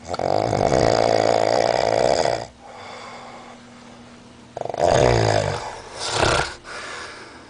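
A drunk man snoring heavily. A long loud snore, then a quieter breath, then two more loud snores in the second half.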